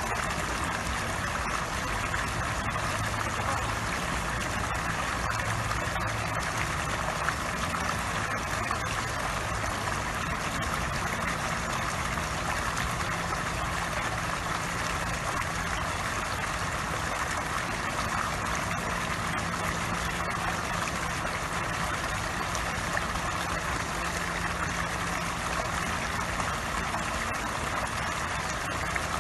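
Water jet from a squirrel-statue pond fountain pouring steadily onto the pond surface: a continuous splashing rush with a faint low hum beneath.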